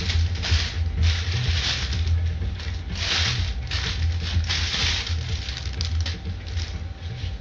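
Irregular rustling and crinkling, a few noisy bursts a second, over a steady low hum.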